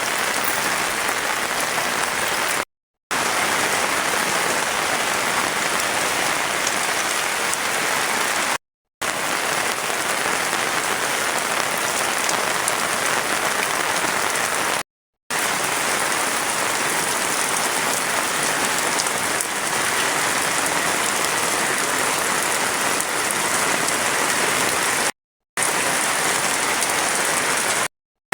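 Heavy rain falling steadily, a dense even hiss, broken five times by brief drop-outs to silence.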